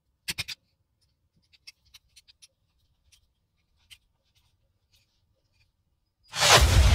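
A quick run of three small clicks, then a few faint light ticks and scratches, as of small hard parts being handled. About six seconds in, a loud sound with strong bass starts suddenly: music starting up.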